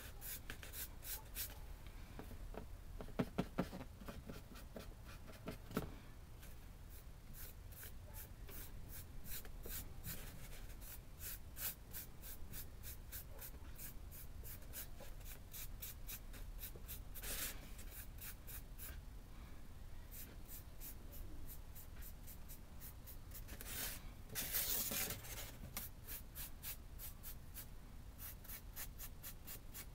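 Paintbrush dry-brushing across carved brick texture: faint, quick scratchy strokes, several a second, with louder, denser scrubbing a little past halfway and again about three-quarters through.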